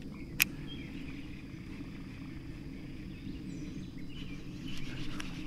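Steady low outdoor background noise beside a creek, with a few faint bird chirps and one sharp click about half a second in.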